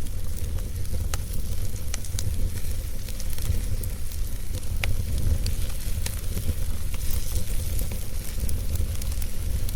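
Wood fire crackling, with scattered sharp pops, the loudest about five seconds in, over a steady hiss and a low rumble.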